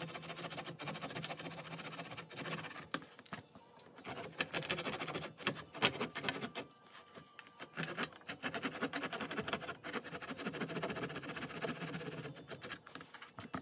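Backsaw laid flat on the wood, sawing wooden plugs off flush in filled hinge screw holes: quick rasping strokes in runs, with a couple of short pauses.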